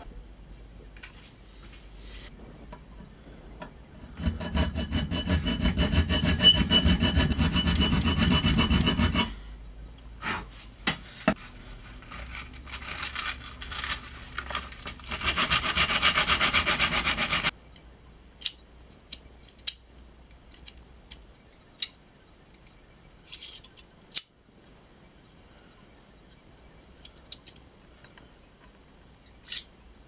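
Bench band saw cutting wooden knife-handle blocks: a loud run of about five seconds with a steady motor hum, then a second, shorter hissing cut a few seconds later. Scattered light clicks and taps follow as the pieces are handled.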